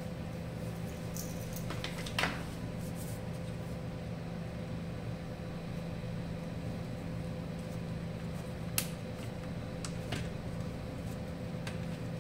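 Steady low machine hum in the room, with a few light sharp clicks as small metal tools are picked from a bit tray: one about two seconds in and two more near the end.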